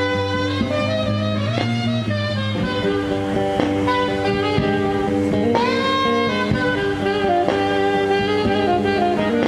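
Live saxophone and guitar playing together: the saxophone holds long notes and slides up into one about halfway through, over a steady low bass tone.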